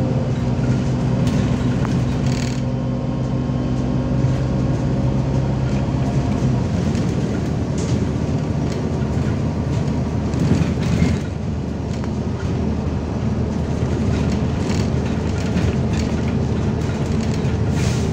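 MAZ-203 city bus in motion, heard from inside the passenger cabin: the diesel engine runs with a steady hum over road noise, and the body gives occasional clicks and rattles. About six seconds in, the steady engine note gives way to a rougher, lower rumble.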